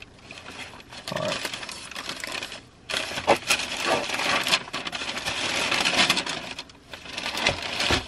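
Tissue wrapping paper, printed like old newspaper, rustling and crinkling as it is handled, with two brief pauses.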